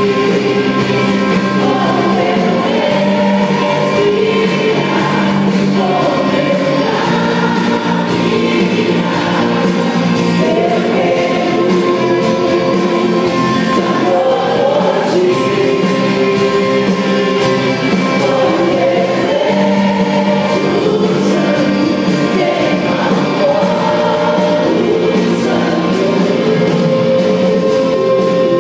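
Christian worship music played live: voices singing long, drawn-out lines over steady sustained chords, with no clear words.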